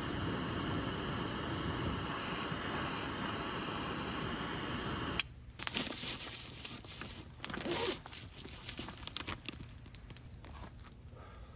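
A steady noisy hiss cuts off abruptly about five seconds in. Quiet crinkling, rustling and scattered clicks of objects being handled follow.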